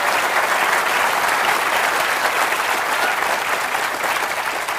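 Large audience applauding, steady clapping that dies away near the end.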